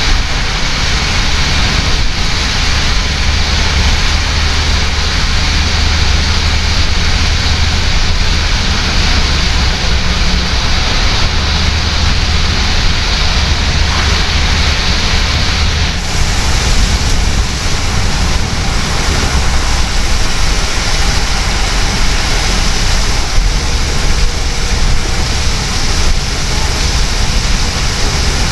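Steady road noise inside a taxi driving in heavy rain: tyres hissing on the flooded road and rain on the car over a low rumble from the engine and road. The hiss grows brighter a little past halfway.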